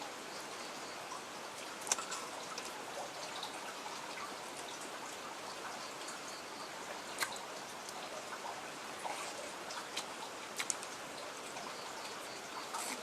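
Close-miked eating of noodles and quail meat: small wet chewing and mouth crackles over a steady hiss, with a few sharp clicks scattered through.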